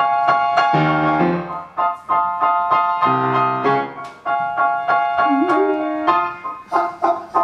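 Steinway Model D concert grand piano playing a song's introduction: repeated struck chords in the middle register over bass notes that change every second or so.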